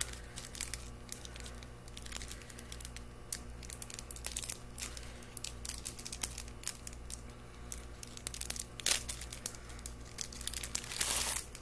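Crinkling and crackling of a small clear plastic jewelry bag being handled, with sharp crackles throughout, a louder one about nine seconds in and a louder rustle near the end.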